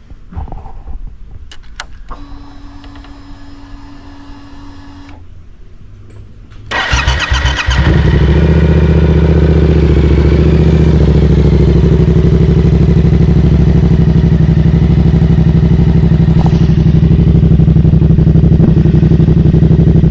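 Yamaha R7 motorcycle's parallel-twin engine being started after its water pump repair: a few clicks and a short steady hum, then about seven seconds in the engine cranks, catches and settles into a loud, steady idle.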